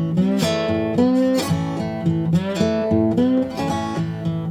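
Background music: acoustic guitar playing a blues accompaniment between the sung lines, with no singing.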